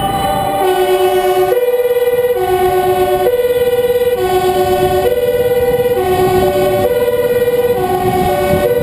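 Two two-tone emergency sirens sounding at once, out of step with each other. Each alternates between a low and a high note, each note held just under a second, over the convoy's engine and road noise.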